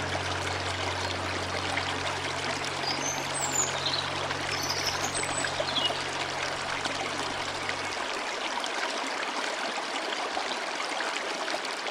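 Running water, a steady even rush like a flowing stream, under a low held music note that fades out about eight seconds in. A few faint high chirps come through the water around the middle.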